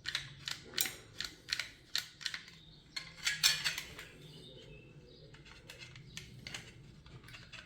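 Metal door handle and lock hardware clicking and clinking in quick, irregular taps, with one longer grating scrape about three and a half seconds in.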